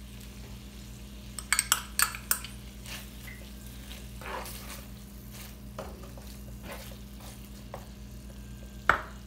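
Chicken frying in a pan with a faint sizzle while it is stirred, the spoon clinking sharply against the pan several times at about a second and a half in and once more near the end, over a steady low hum.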